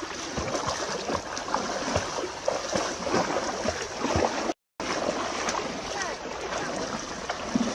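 Feet wading and splashing through shallow river water, an irregular run of sloshes and splashes with each step. The sound cuts out for a moment about halfway through.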